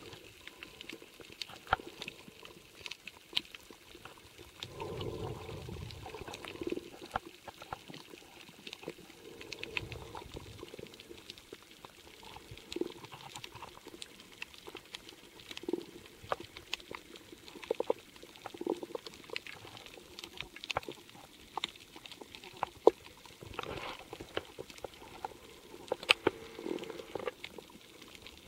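Underwater reef ambience heard through a waterproof camcorder: many irregular sharp clicks and crackles over a faint wash of water, with muffled low rumbles about five seconds in and again about ten seconds in.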